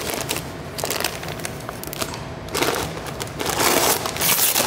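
Brown kraft wrapping paper crinkling and tearing as it is pulled off a titanium exhaust tip, growing louder about two and a half seconds in.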